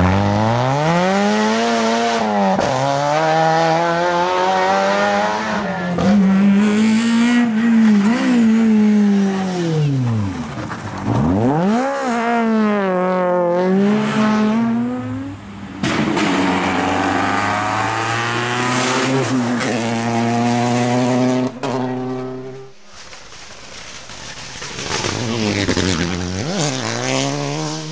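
Rally car engines revving hard and changing gear as several cars pass in turn on a stage, the pitch climbing and dropping again and again. Near the end it goes quieter briefly before another car comes up.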